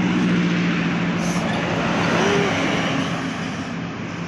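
Intercity bus passing close by: engine and tyre noise swell and then ease off after about three seconds, over a steady low drone.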